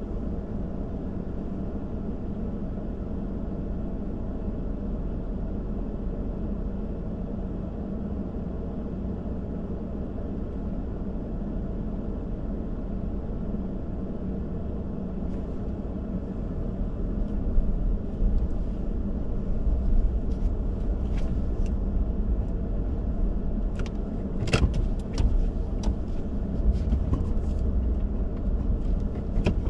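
A car being driven, with a steady low rumble of engine and road noise. From about halfway through, the rumble grows uneven, with louder surges and scattered sharp clicks and knocks.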